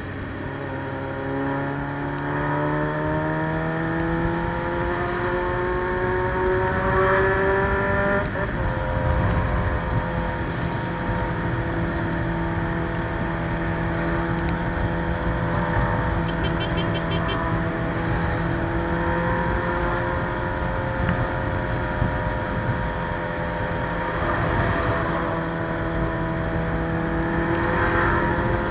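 Carbureted Suzuki Bandit 600's inline-four engine through a straight-pipe exhaust, climbing in pitch as the bike accelerates for about eight seconds. It then shifts gear and runs at a steady pitch while cruising, rising a little again near the end.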